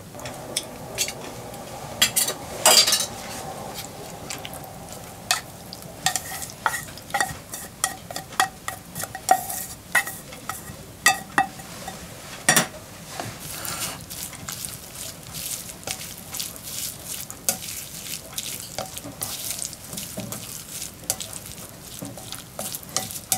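Canned tuna, chopped shiso and grated daikon with egg yolk being stirred in a glass bowl: soft wet mixing noise with many short clicks and clinks of the utensils against the glass.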